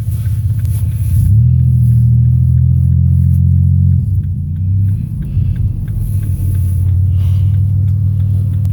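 Motor vehicle engine running with a steady low rumble, a little louder from about a second and a half in until about four seconds in.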